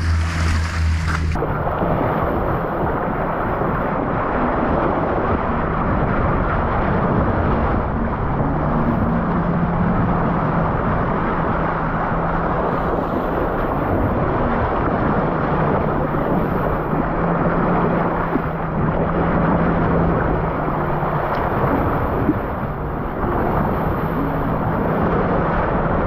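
Steady rush of wind on the microphone and water sluicing along the hull of a boat running at speed, with the engine's low drone underneath. One light knock near the end.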